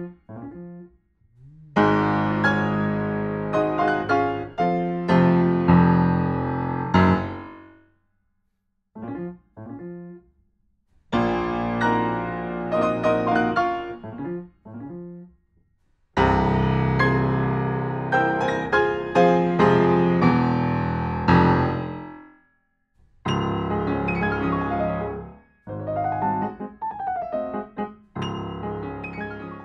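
Fazioli full concert grand piano played in several short passages of full chords and runs, with brief pauses between them. The piano has not been tuned since delivery and has gone noticeably out of tune.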